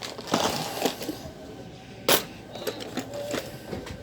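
Scattered light clicks and knocks of small metal parts and tools being handled, with one sharp, louder click about two seconds in.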